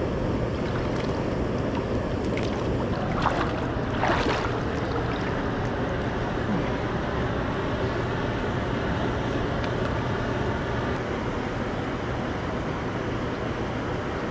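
Steady rushing of river water below a dam, with a low hum underneath. Water splashes about three and four seconds in as a large paddlefish is held in the shallows for release.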